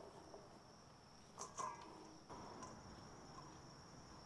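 Near silence: room tone with a faint steady high-pitched whine, and a few soft, faint rustles of shredded cabbage being gathered by hand and dropped into a stainless steel bowl.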